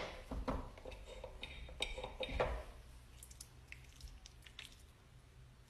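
Long acrylic nails tapping and clicking on a small metal container: a scatter of light, sharp clicks, busier in the first half and fainter later.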